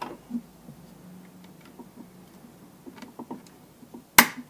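Small clicks and taps of hands and tools working the plastic body of a Fimi X8 SE drone apart, with one sharp snap near the end that is much louder than the rest.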